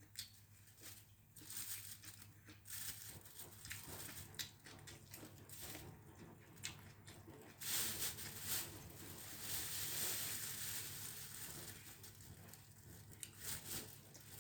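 Close-miked eating: chewing pancit noodles with small clicks, and a plastic bag crinkling, most loudly in a rustling stretch around the middle.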